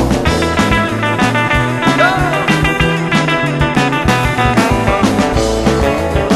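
Rockabilly band music: an electric guitar lead with bent notes over a stepping bass line and drums, with no singing.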